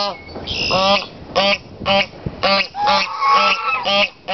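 White domestic geese honking in a rapid series, about two honks a second, with one longer drawn-out call around three seconds in.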